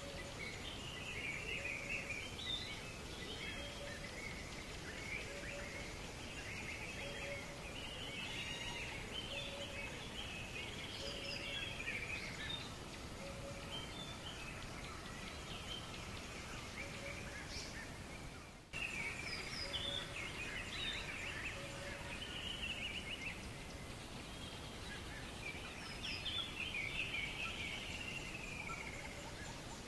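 Small birds chirping and twittering, with a short low call repeated about every second and a half, over a steady outdoor hiss. About two-thirds of the way through, the sound dips briefly and then jumps back.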